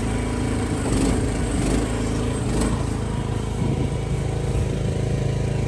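Mini excavator's small engine running steadily while the machine works against a bush, with a few light knocks in the first three seconds.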